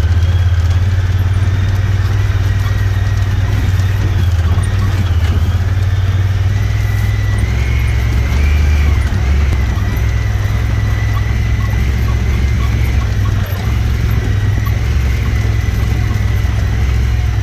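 Vehicle driving, heard from inside the cab: a steady low engine drone, with a faint high whine above it that wavers in pitch.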